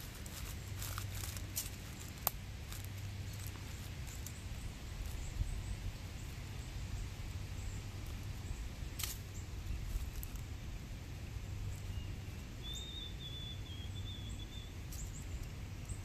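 Outdoor ambience: a steady low rumble with a few faint sharp clicks, and one faint wavering bird call about three-quarters of the way through.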